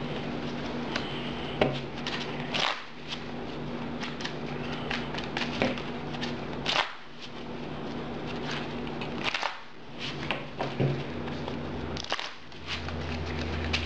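Trading cards being handled and laid on a table: scattered light clicks and taps, with a steady low hum underneath.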